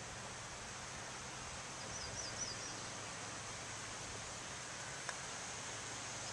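Quiet outdoor ambience with a steady hiss. A short run of quick, high bird chirps comes about two seconds in, and a single sharp click comes near the end.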